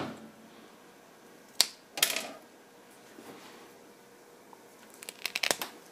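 Small tool-handling sounds on a tabletop: a single sharp click, a brief rustle, then a quick run of clicks near the end as side-cutting pliers nip at the insulation of a wire to strip it.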